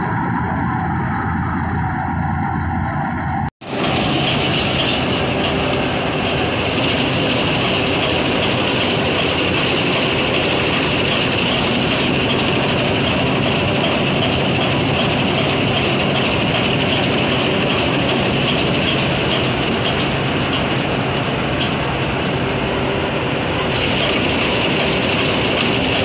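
Combine harvester running steadily as it cuts ripe rice: a dense, loud machine noise of engine and turning header reel and cutter bar, with a high whine running through it. The sound breaks off for an instant about three and a half seconds in, then carries on.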